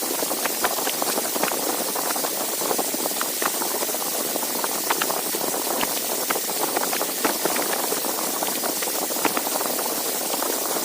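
Dyson V7 cordless vacuum cleaner running steadily during a battery runtime test: a constant rush of air with many small crackling ticks.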